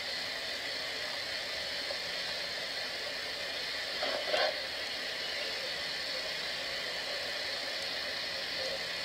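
Steady hiss of background noise, with a brief faint sound about four seconds in.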